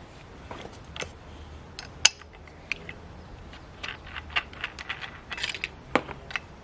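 Irregular light clicks and metallic knocks of hand tools and metal pieces being handled at a workbench, with one sharper knock about two seconds in and the clicks coming more often in the second half.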